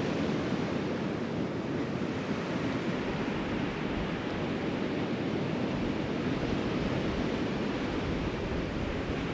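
Steady noise of ocean surf washing onto the beach, with wind buffeting the microphone.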